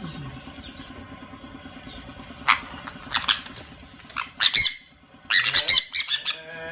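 A bird squawking: short, harsh, high calls, a few single ones starting about two and a half seconds in, then a quick run of them near the end, over a faint steady hum.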